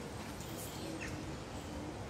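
Steady outdoor background noise, with one faint, short bird chirp about a second in.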